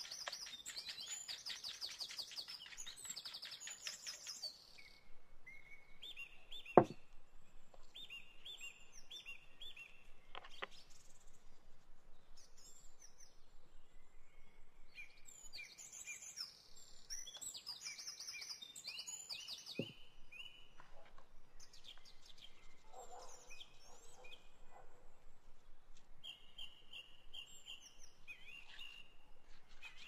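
Small songbirds chirping and singing, with a fast trill in the first few seconds and repeated short whistled phrases after. A single sharp knock about seven seconds in is the loudest sound, with two fainter knocks later.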